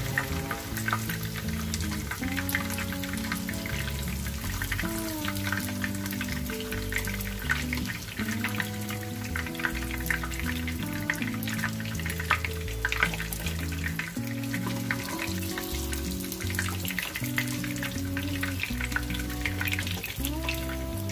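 Pieces of pork fat frying in hot oil, crackling and sizzling steadily as they render down into cracklings. Background music with held, changing notes plays underneath.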